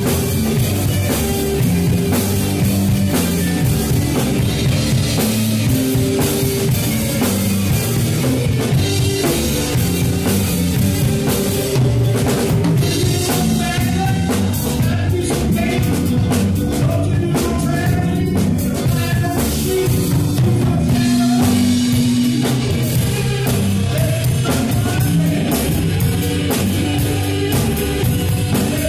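Live rock band playing at full volume: electric guitars over a drum kit with steady bass-drum and snare hits.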